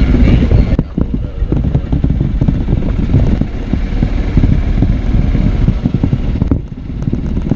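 Golf cart driving along, its running rumble mixed with wind buffeting the microphone of the camera mounted on the cart. The sound is loud and uneven, and dips briefly near the end.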